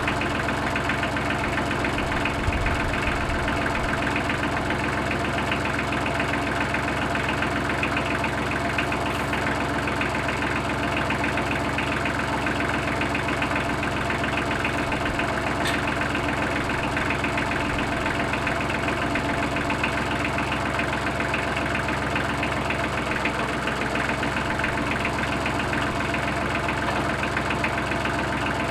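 Tractor engine running steadily at constant speed.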